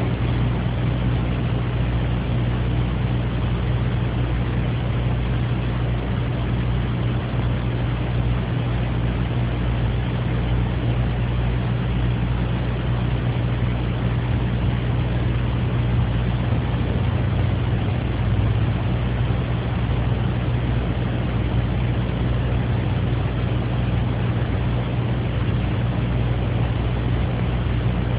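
Steady low hum under an even hiss, unchanging, with no coughs, throat-clearing or other sudden sounds.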